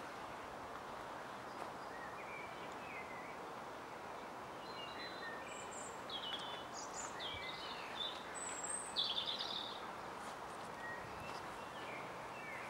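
Small birds chirping, with many short high calls scattered over a steady background hiss of outdoor ambience. A cluster of chirps about nine seconds in is the loudest.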